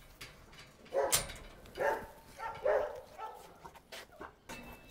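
A dog barking about four times in quick succession, the first bark the loudest.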